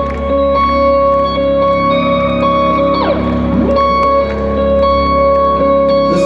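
Live rock concert sound over a stadium PA: electric guitar playing a slow, droning intro of long held notes with a few sliding glides in pitch, and no drums.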